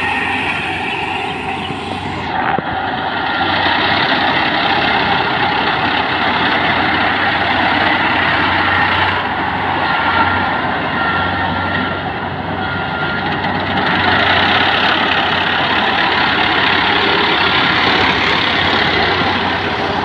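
Kubota PRO588-IG combine harvester running steadily, a loud continuous machine din that swells and eases a little twice.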